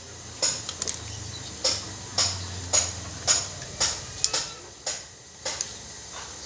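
Irregular sharp metallic clicks and taps, about nine in all, from a screwdriver and metal parts being worked while a washing machine gearbox is fitted.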